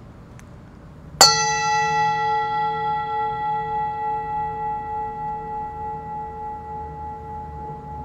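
A metal bell struck once about a second in, then ringing on with several steady tones that fade slowly and waver gently in loudness.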